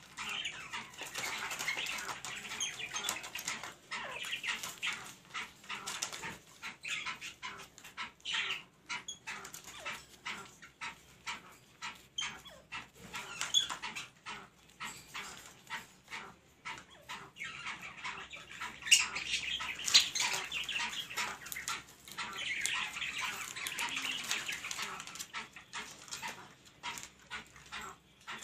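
Black francolins calling, a busy string of short, sharp chattering notes, loudest about two-thirds of the way through.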